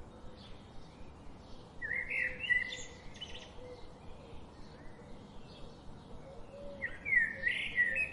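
Forest birdsong: a loud warbling song phrase about two seconds in and another near the end, with fainter chirps from other birds in between over a steady background hiss.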